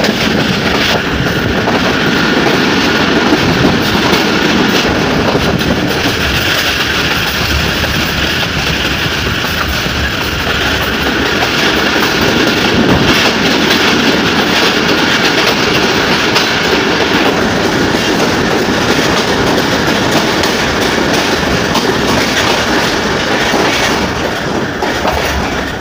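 Passenger train running along the track, loud and steady, heard from an open carriage doorway.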